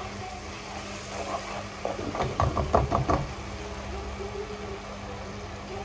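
Onion-tomato masala cooking in a steel pot while a plastic spoon stirs it, with a few knocks of the spoon against the pot about two to three seconds in. A steady low hum runs underneath.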